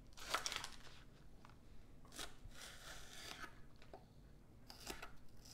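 Knife slicing through green onions on a cutting board: a few separate crisp cuts, spaced irregularly.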